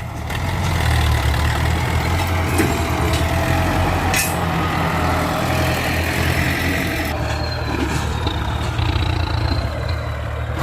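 Ford 6610 tractor's diesel engine running steadily under load while pushing soil, a deep continuous drone with a couple of brief knocks a few seconds in.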